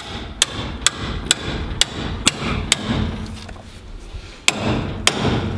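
Hammer blows on the steel steering knuckle and steering arm of a truck's front suspension, struck to separate a stuck ball joint: about eight sharp metal-on-metal hits, roughly two a second, with a pause of over a second before the last two.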